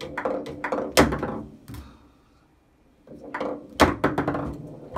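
Foosball table in play: sharp knocks and clacks as the ball is struck by the player figures and the rods knock against the table. A short quiet spell in the middle, then a quick flurry of knocks.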